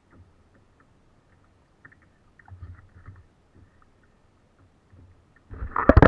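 Faint scattered ticks and low knocks on a plastic sit-on-top kayak on calm sea. About five and a half seconds in comes a loud, rumbling burst of bumps as the mounted camera is knocked and swung round.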